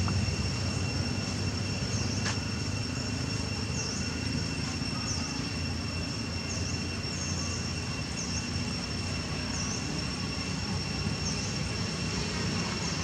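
Outdoor ambience: a steady low rumble, with a steady high-pitched whine over it and short high chirps repeating every second or so.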